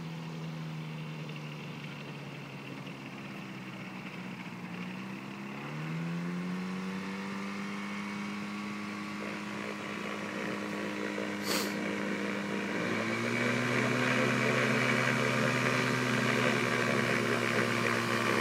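Thruster TST microlight's Rotax 503 two-stroke twin engine and propeller running at low revs as the aircraft taxis. The revs rise about five seconds in and again at about thirteen seconds, and the sound grows louder as the aircraft comes closer.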